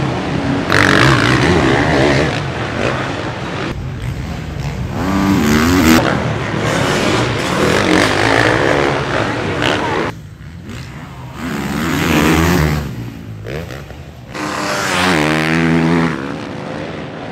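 Motocross bike engines, among them a Kawasaki KX450F, revving up and dropping off in repeated rising and falling sweeps as the bikes race. The sound changes abruptly a few times where one stretch cuts to the next.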